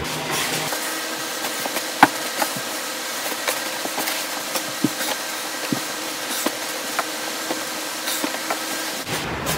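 Clothes and nylon down jackets rustling and being dropped onto a pile, played back fast-forwarded, so it comes out as a thin, high buzzing hiss with scattered sharp clicks; the loudest click is about two seconds in.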